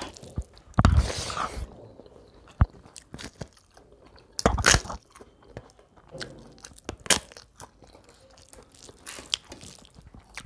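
A person eating, with irregular bites and chewing and several louder crunches, about one every two to three seconds.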